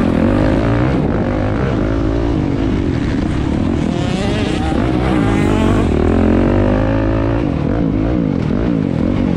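Several motocross bike engines revving at once, their pitches rising and falling over one another as the riders accelerate and shift through the gears.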